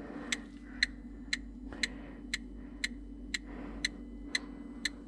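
Electronic gas leak detector ticking steadily, about two clicks a second, over a faint steady hum.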